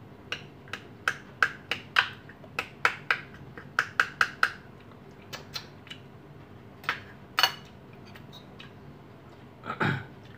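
Metal spoon clinking against a small ceramic bowl while a chili and lemon dip is stirred and pressed: quick taps about three a second for the first four seconds or so, then a few scattered clinks and a short cluster near the end.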